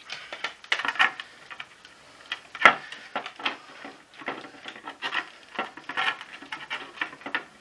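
Hard plastic parts of a Vax ONEPWR Edge vacuum floor head being handled: irregular clicks, knocks and rubbing, with one sharp click a little under three seconds in.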